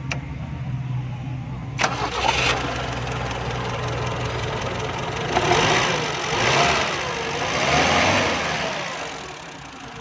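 1974 Toyota Corolla's four-cylinder engine running after its jammed valve tappets were reset to cure hard starting. There is a sharp click about two seconds in, then the engine is revved up and down three times before dropping back toward idle.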